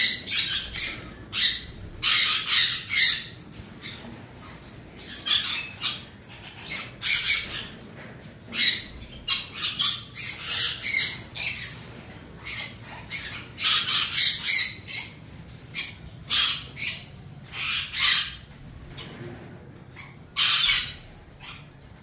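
Parrot chicks squawking: many short, harsh, raspy calls in irregular runs, with short gaps between them.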